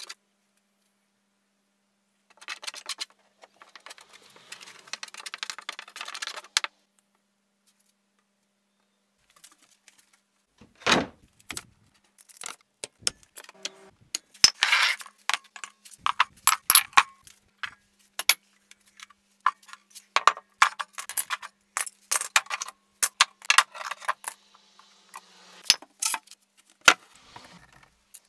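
A few seconds of rubbing as glue is spread by hand across wooden planks. After a pause come many short metal clinks, rattles and knocks as steel bar clamps and wooden blocks are set and tightened around the glued planks.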